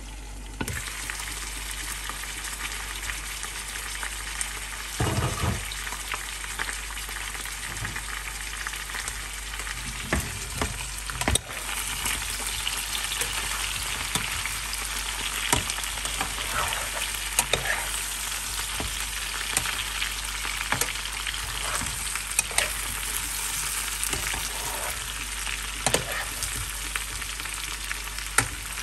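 Chicken pieces and boiled potatoes sizzling in oil in a nonstick frying pan while being stirred and turned with a spatula, which scrapes and knocks against the pan many times. The sizzle starts about a second in, and one knock near the middle stands out from the rest.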